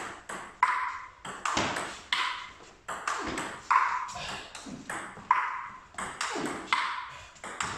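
Table tennis ball in a steady chopping rally, clicking alternately off the table and the two bats, one of them faced with long-pimpled rubber. The sharp clicks come two or three a second, each ringing briefly.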